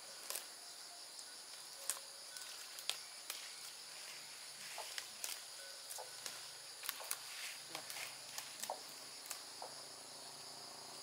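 A steady high-pitched insect chorus, crickets among them, with scattered light clicks and rustles from hands picking leafy vegetable plants.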